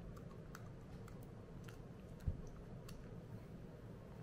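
Faint scattered clicks of a screwdriver backing out a 1911 pistol's grip screws and of the small metal parts being handled, with one soft low thump a little past halfway.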